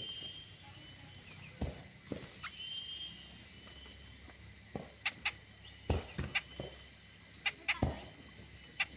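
Birds in an aviary calling with short whistled notes, over a string of sharp knocks or taps that cluster from about five seconds in.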